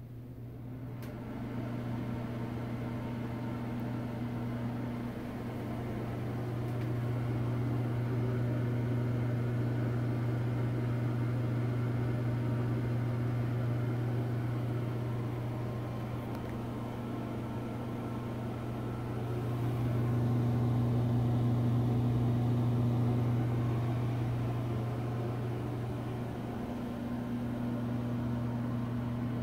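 Penn Zephyr ceiling exhaust fan running smoothly with a steady low hum. The hum grows louder over the first couple of seconds, then rises and falls a little in loudness a few times.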